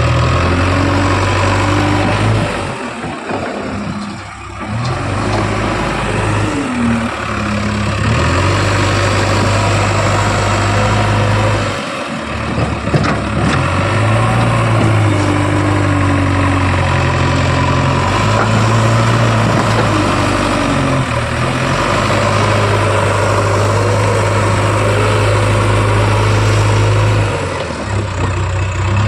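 JCB 3DX backhoe loader's diesel engine running under working load. Its speed steps up and down as the hydraulics dig and swing, with short drops in loudness a few seconds in and again about twelve seconds in.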